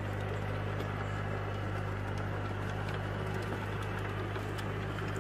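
Compact tractor's engine running steadily under load while driving a rear-mounted rotary tiller through dry soil: a constant low hum with a rushing, churning noise over it.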